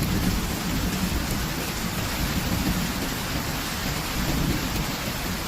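Rain falling steadily, with a continuous low rumble underneath.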